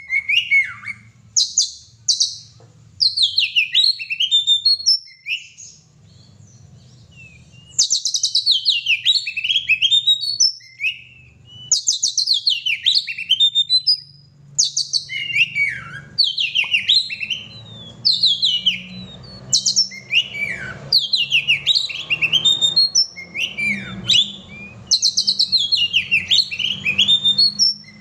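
Oriental magpie-robin singing in bouts of rapid, varied whistled and chattering phrases, with a pause of a few seconds about a quarter of the way in.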